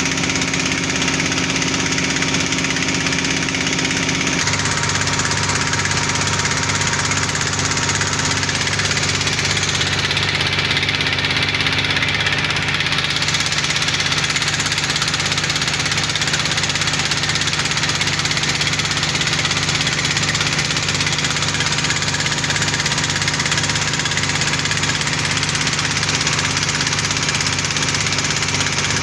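Engine of a small trailer-mounted borehole drilling rig, running steadily as it powers the hydraulic drill head. Its note shifts slightly about four seconds in.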